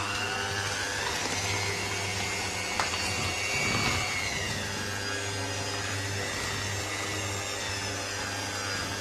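Electric hand mixer running steadily, its beaters whisking cake batter in a stainless steel bowl. The motor's whine sags briefly in pitch about halfway, and there is a single tick about three seconds in.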